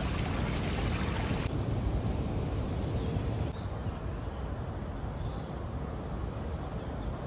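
Water splashing in a tiered fountain for about a second and a half, then a cut to open-air park ambience: a steady low rumble with a few faint high chirps.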